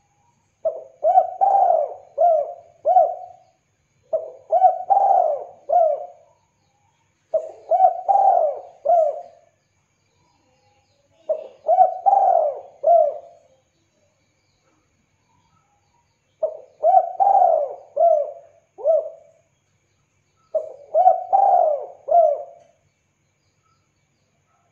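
Spotted dove (tekukur) cooing: six phrases, each a quick run of four or five coos, repeated every few seconds with short silences between.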